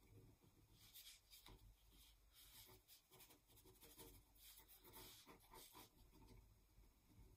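Faint scratching of a ballpoint pen (biro) on paper, drawing short hatching strokes in a quick, irregular series of rasps.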